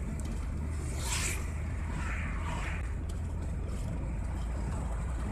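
Steady engine drone and tyre-on-road noise heard inside a moving car's cabin at cruising speed.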